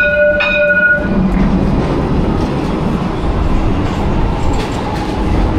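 A street tram rings its bell twice in quick succession, then passes close by, its wheels running loudly and steadily on the rails.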